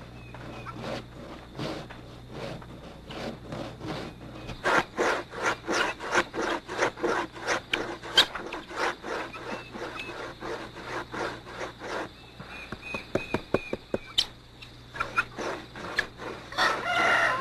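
Rhythmic hand scraping: a blade worked over a block in short strokes, about three a second, louder in the middle stretch.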